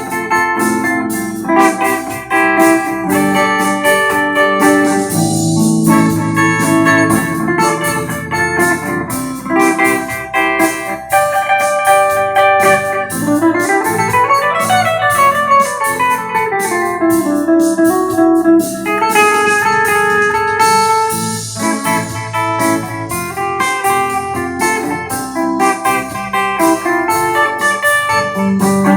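Electric guitar played with a clean tone, chords and melody lines over a backing track with a steady beat. About halfway through, a pitch sweeps up and back down.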